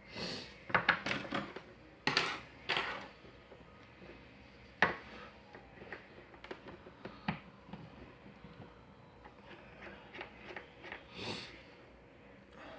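Metal clicks and clinks of a picked lock being handled and taken apart: a quick cluster in the first few seconds, one sharp click near five seconds in, then scattered lighter ticks.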